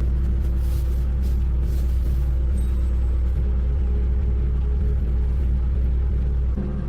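A steady low rumble of a running machine, with a few faint short noises about half a second to two seconds in.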